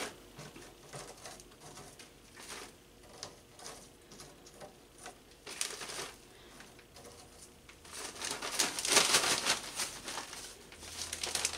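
Dried apple slices picked off a plastic dehydrator tray and dropped into a plastic zipper bag: light scattered taps and rustles, then louder crinkling of the bag from about eight seconds in.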